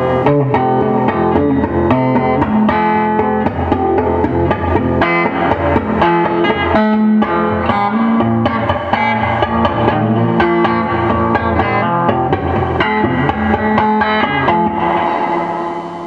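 Electric guitar played through a Fender Vibro King valve combo amp, its freshly fitted spring reverb pan in use. The amp is loud even with the volume set almost to nothing.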